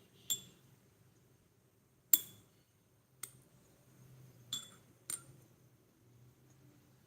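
Miniature kitchenware clinking: five sharp, ringing clinks of small hard dishes or utensils knocking together, the loudest about two seconds in.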